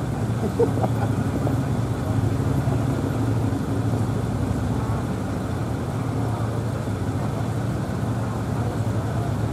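A steady low engine hum, like a vehicle idling, with faint voices in the background.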